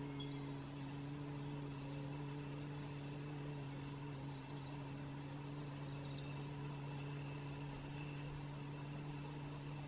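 A woman sounding the Qi Gong healing sound of the lungs: one long, soft, steady sound on a slow exhalation, the air let out in a thin stream rather than pushed.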